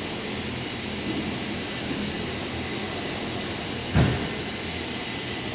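Steady low hum of workshop background noise, with one dull thump about four seconds in as a hand works the timing belt onto the crankshaft sprocket.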